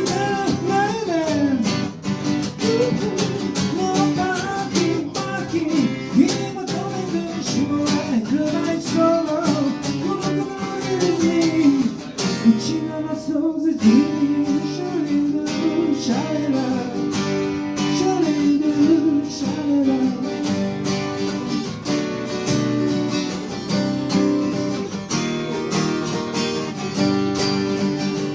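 Acoustic guitar played live, strummed chords under a winding melody line that bends in pitch, continuing without sung words.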